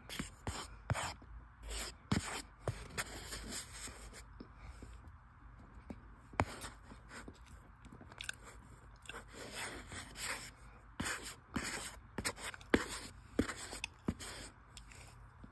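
Cornstarch crunching and squeaking, in irregular crisp crackles that come in quick clusters.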